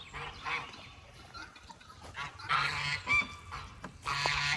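Guinea fowl giving harsh, rasping calls in several bursts, loudest a little past halfway and again near the end.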